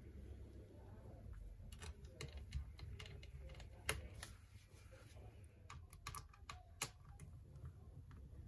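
Faint, irregular clicks and taps of a small screwdriver and screws against a laptop's battery and metal chassis as the battery screws are put in, with a sharper click about four seconds in and another near seven.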